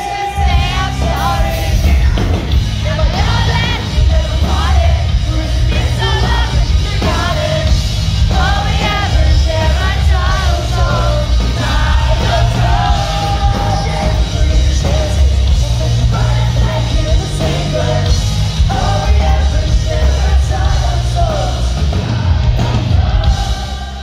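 Live pop-punk band playing at full volume: distorted electric guitars, bass and drums under a lead vocalist singing, recorded from the crowd with heavy bass. The music drops away near the end.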